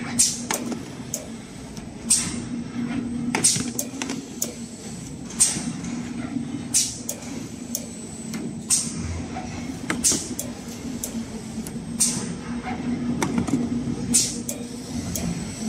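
Servo-driven automatic paper core cutter running, with a steady machine hum and a sharp cutting snap every second or two as its circular knife cuts rings off a cardboard core tube.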